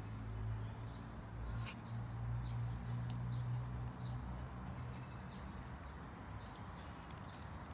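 A small dog sniffing in grass close by, against faint bird chirps and a low steady hum that fades a little about halfway through. There is one sharp click early on.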